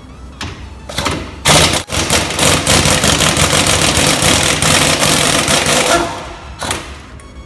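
Pneumatic impact wrench hammering on a 30 mm rear wheel hub nut to loosen it: short bursts about a second in, then about four and a half seconds of continuous rapid hammering, and a brief final burst near the end.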